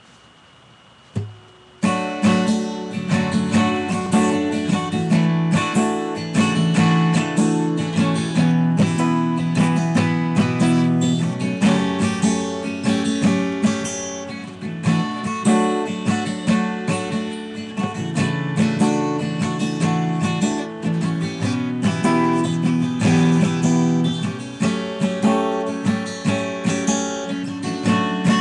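Acoustic guitar played with strummed chords in a steady pattern, starting about two seconds in after a short knock.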